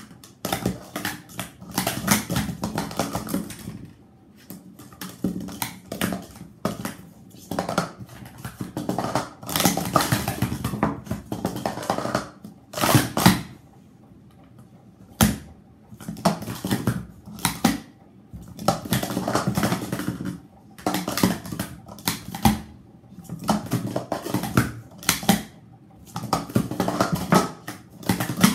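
Speed Stacks plastic sport-stacking cups being stacked up and down at speed on a stacking mat: rapid clattering and clacking of hard plastic cups, in runs of a few seconds with short pauses between.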